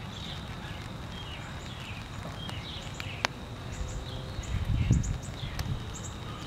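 Outdoor ambience in a light warm rain: short, high bird chirps keep coming, and a few sharp ticks stand out. Under them is a low rumble that swells briefly about five seconds in.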